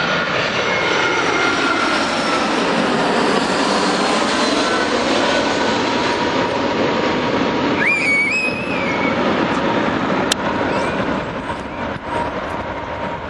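Jet airliner passing close by, its engines making a loud steady noise with a slowly sweeping tone that eases off near the end.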